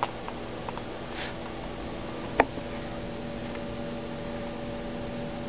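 A single sharp computer mouse click about two and a half seconds in, with a few faint ticks before it, over a steady low electrical hum.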